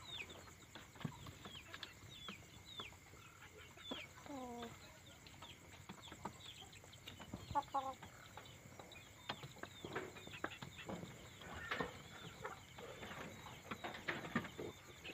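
Domestic chickens roosting at night: a low falling call about four seconds in and a short cluck a few seconds later, with scattered rustling and clicks. A rapid run of short high falling chirps fills the first half, over a faint steady high whine.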